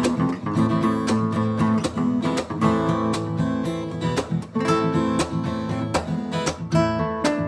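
Background music: acoustic guitar, strummed and plucked, with chords struck several times a second.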